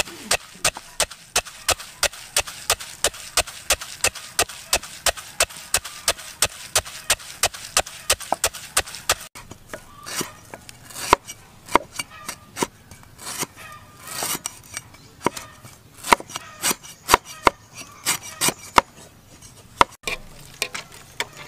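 Wooden pestle pounding peanuts in a wooden mortar, in even strokes about four a second. From about nine seconds in, a cleaver slicing lemongrass on a chopping board, with quick, uneven knocks.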